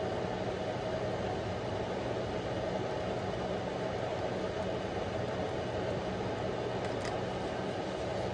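Kitchen range hood exhaust fan running steadily: an even rushing noise with a low motor hum.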